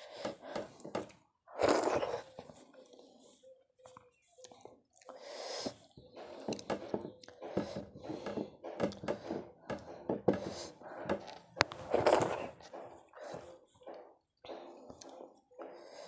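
Close-up eating sounds: fingers mashing and mixing soft khichudi on a plate, and mouth chewing, an irregular run of wet squelches and smacks. The loudest come about two seconds in and again around twelve seconds.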